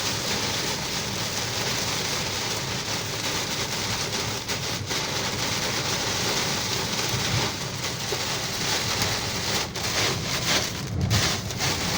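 Heavy rain pouring down in a storm: a steady, even hiss.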